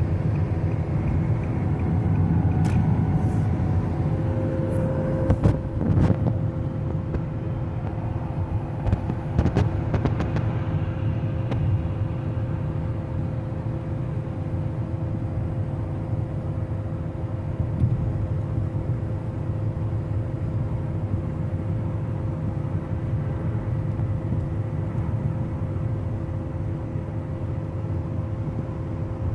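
Steady road and engine noise of a car driving on the highway, heard inside the cabin, with a constant low rumble and a faint steady hum. A few short clicks come in the first ten seconds or so.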